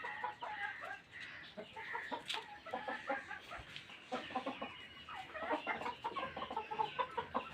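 Chickens clucking, a steady scatter of short clucks and calls throughout.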